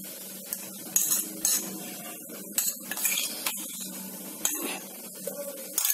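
A spatula clinking and scraping against steel pot and jar rims as green chilli paste is scraped into a pressure cooker: a string of short, irregular clinks over a faint steady hum.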